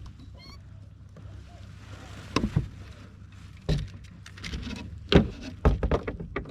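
Several sharp knocks and bumps against a small paddle boat's hull as gear and paddle are handled, over a steady low rumble.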